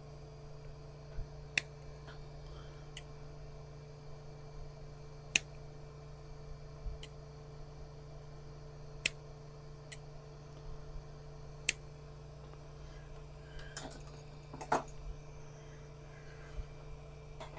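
Sparse sharp clicks and light handling of small parts and tools on a workbench while heat-shrink tubing is fitted over freshly soldered wires, with a short flurry of rustling about three quarters of the way through. A steady low hum runs underneath.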